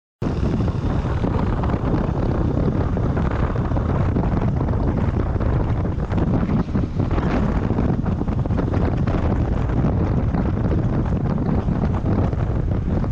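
Wind buffeting a microphone: a loud, steady low rumble and rush that cuts in abruptly.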